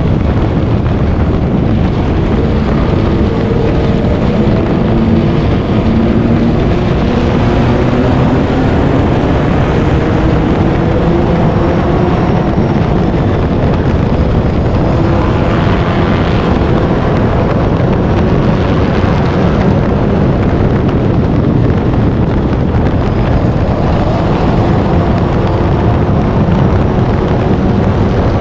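Four-cylinder stock car engine running hard at racing speed, heard from the cockpit over heavy wind and road noise, its pitch rising and falling as the driver gets on and off the throttle through the turns.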